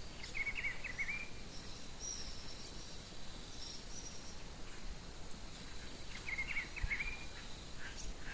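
Wild birds singing: a short warbled phrase near the start, repeated about six seconds later, with thin high notes in between. Under it runs a steady high insect drone and a low rumble of background noise.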